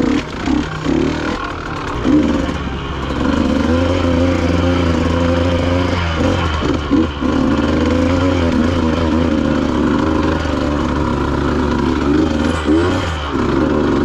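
Dirt bike engine revving up and down with the throttle while riding a rough trail, heard from on the bike.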